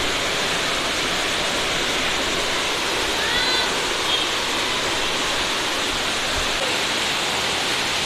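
Waterfall: a steady, unbroken rush of water falling from a height.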